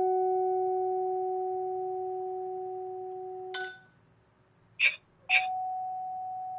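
Musser vibraphone bars struck with yarn mallets: two notes ring on and slowly fade, then are cut off with a click about three and a half seconds in. After a moment of silence come two soft strikes, the second leaving a single new note ringing.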